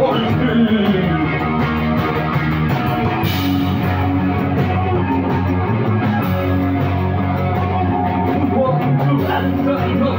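Rock band playing live, loud and steady: electric guitar over a drum kit.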